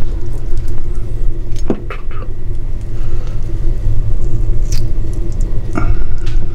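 Steady low rumble with a constant hum, and a few faint clicks about two seconds in and again near the end.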